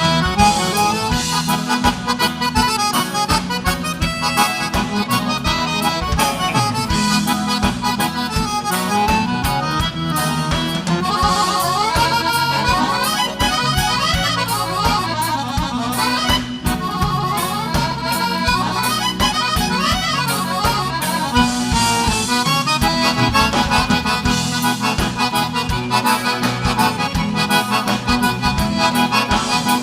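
Live gaúcho dance music without vocals: an accordion carries the melody over a steady bass and rhythm-section beat.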